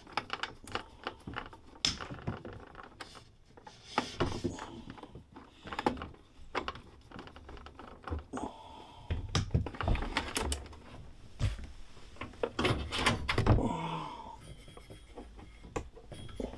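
Irregular clicking, tapping and knocking of a screwdriver and hands working at the plastic electrics box of a combi boiler, with heavier low thuds around the middle.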